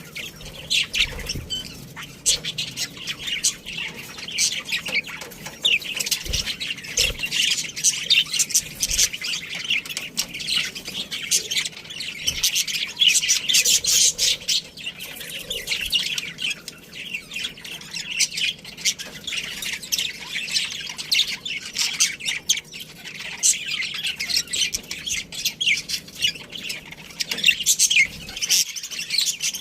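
A colony of budgerigars chirping and squawking. Many short, rapid calls overlap without a break.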